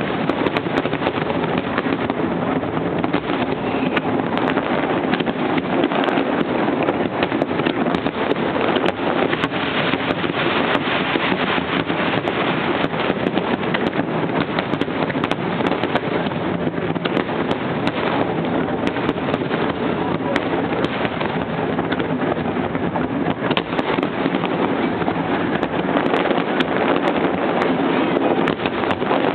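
Fireworks finale: a dense, unbroken barrage of shell bursts that merges into one steady rumble, with many sharp cracks throughout.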